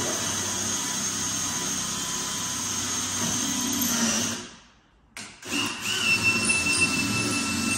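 Cordless drill boring a hole through a kitchen cabinet door for a knob. It runs steadily for about four seconds, stops for about a second with a click, then starts up and runs again.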